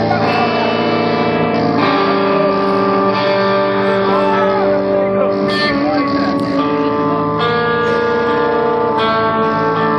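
Live rock band playing: guitars holding chords that change every second or two, with a singer's voice over them.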